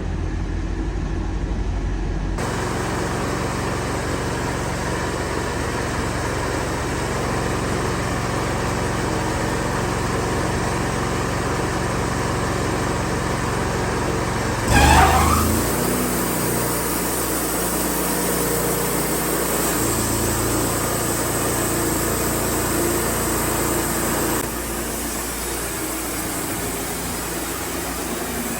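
Wood-Mizer LT40 portable band sawmill running steadily, its sound growing fuller about two seconds in and dropping back near the end, with one brief loud noise about halfway through.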